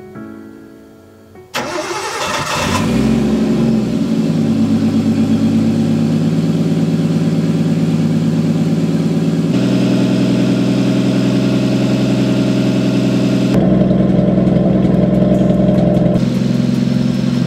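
Nissan RB20DET turbocharged straight-six in a 240SX firing up about a second and a half in. It revs briefly, then settles into a steady idle at about 1,300 rpm.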